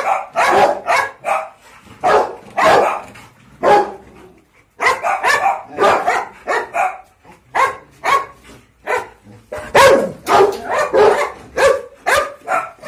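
Dogs barking repeatedly, short sharp barks at about two to three a second, with a brief pause about four seconds in.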